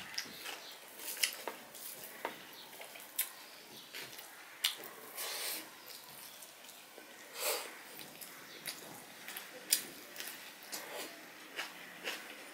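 Close-up eating sounds: wet chewing and lip smacks with scattered sharp clicks, and a few longer squishy bursts, as rice and fish curry are eaten by hand and mixed with fingers on a steel plate.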